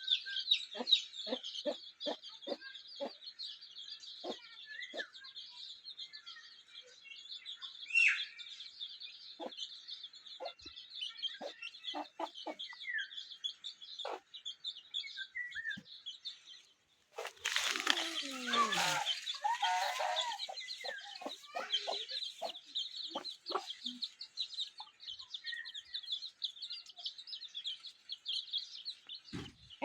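Aseel chickens clucking again and again over a steady high-pitched chirping in the background. About halfway through the sound cuts, and a louder, busier run of calls follows.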